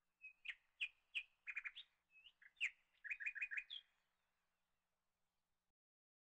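A small bird chirping: a quick run of short chirps and sharp clicks for about four seconds, then it stops.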